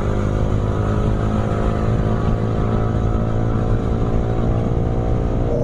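Motorcycle engine running at a steady cruise, its note even throughout, over a constant rush of wind and road noise on the rider's microphone.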